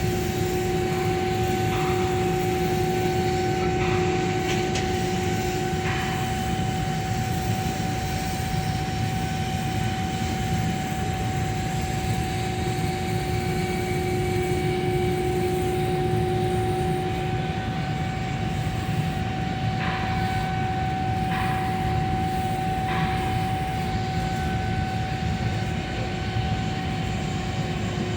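Steady machine drone of workshop equipment running during pipe welding, with a constant hum and a few faint ticks now and then.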